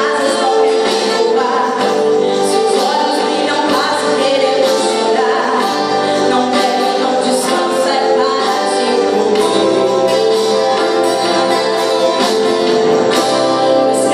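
Live gospel worship music: a woman singing into a microphone, backed by acoustic guitar and keyboard, amplified through loudspeakers. The music runs steadily with no break.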